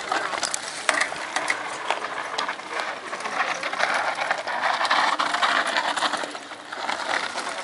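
Mountain bike freewheel hubs buzzing with a rapid ratchet clicking as riders coast down a loose dirt descent, mixed with tyre noise on the dirt.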